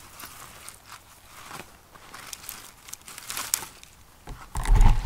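Dry twigs and dead branches crackling and snapping as a hand rummages in a brush pile, in scattered small clicks, followed by a louder thump and rustle near the end.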